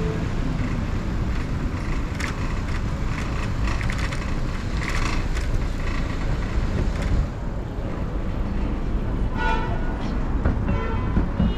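Steady city road traffic noise, with a short pitched toot about nine and a half seconds in.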